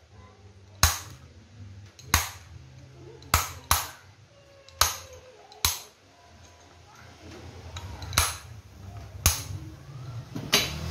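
Hammer striking a steel rod set in an electric drill's chuck: about nine sharp metal-on-metal blows, irregularly spaced, roughly a second apart.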